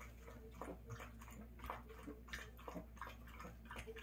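Poodle lapping water from a bowl, with short wet laps at about three a second.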